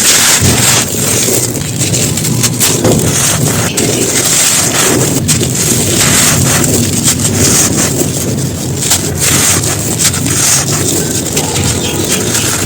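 Chunks of dry, crumbly floor material being crushed and crumbled: a dense, continuous crunching with many small sharp cracks.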